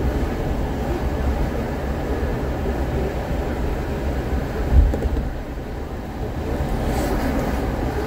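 Steady road and tyre rumble of a car driving at highway speed, heard from inside the cabin, with one brief low thump just before five seconds in.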